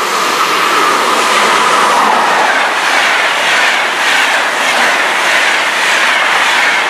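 InterCity train hauled by a class 101 electric locomotive passing close at speed: a loud rush of wheels on rail, with a clatter that repeats as each coach's wheelsets go by.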